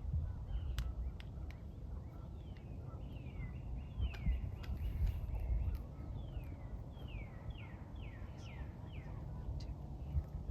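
A bird calling: a series of quick falling chirps, coming faster and in a run of about six near the end, over a low steady rumble of outdoor noise with scattered sharp clicks.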